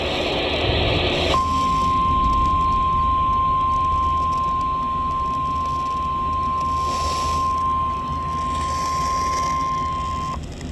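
Weather radio alert signal: a burst of digital data noise ends about a second in, then the single steady warning alarm tone sounds for about nine seconds and cuts off sharply. It signals that a warning message, here a severe thunderstorm warning, is about to be read.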